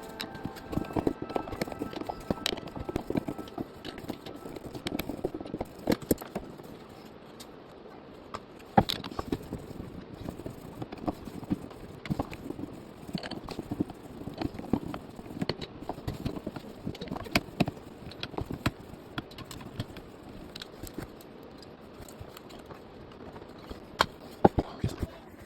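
Irregular clicks, taps and light scraping of a screwdriver and small metal parts as the MOSFET transistors are unscrewed from a golf cart motor controller's heat sink.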